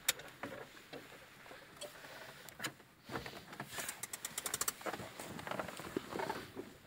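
Someone climbing out of a vehicle: scattered clicks and knocks of the door and handling, with a quick rattle of clicks a little past halfway.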